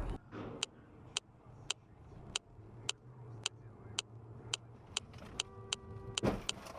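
A car's turn-signal relay ticking steadily about twice a second over a low engine hum inside the cabin. Near the end come a brief tone and then a sharp thump, the loudest sound here.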